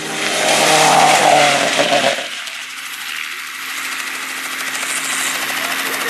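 A rally car passes at speed on a loose-surface stage, its engine revving hard, for about two seconds. The sound then cuts abruptly to a steadier mechanical hum with a low droning tone.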